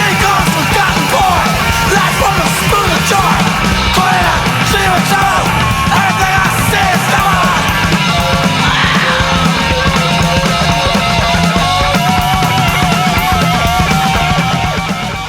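Punk rock song playing loud, with a dense band sound of guitars and drums and a yelled vocal line; it fades out near the end.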